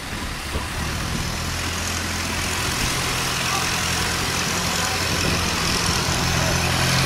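Inboard engine of a long-tail cargo boat running steadily under heavy load as it pushes upstream through a sluice gate against a strong current, growing louder as the boat comes alongside, over the hiss of rushing water.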